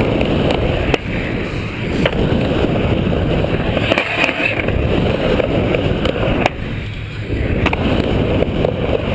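Skateboard wheels rolling hard across a wooden skate bowl, a continuous loud rumble, with a few sharp clacks from the board.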